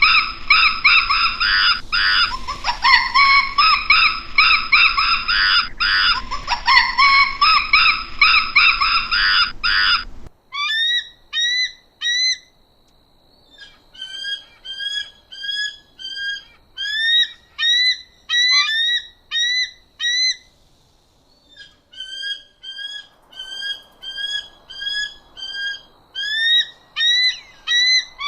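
Birds calling. For about ten seconds there is a dense run of loud, harsh, overlapping calls. Then an abrupt change brings a series of short rising call notes, about two a second, with two brief pauses.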